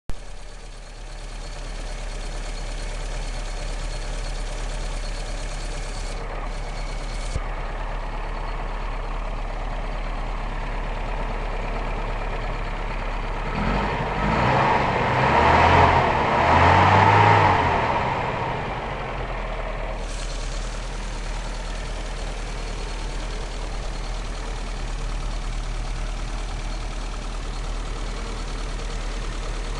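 A 1983 VW 1500's four-cylinder engine idling steadily, smooth like a Singer sewing machine. Near the middle it is revved up twice in quick succession, then drops back to idle.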